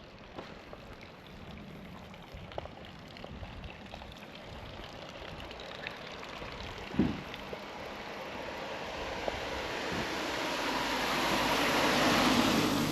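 A vehicle approaching and passing close, swelling to its loudest near the end. Earlier, scattered light ticks and one short thump about halfway through over a steady background hiss.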